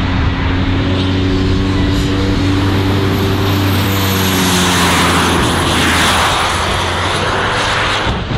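Several small turbojet engines on a jet-powered car running together: a loud, steady rushing noise with a thin high whine that slowly sinks in pitch. The rushing swells a little past the middle.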